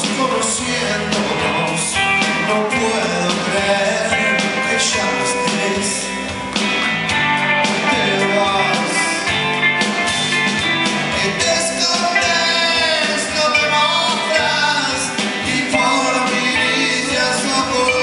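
Rock band playing live: electric guitars and drums, with a male lead voice singing over them.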